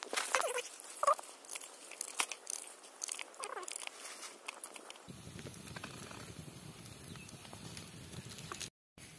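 Small knife cutting through a red onion held in the hand: a quick series of crisp crunching cuts, with a few short chirps among them. After about five seconds the cuts give way to a steady outdoor background hiss.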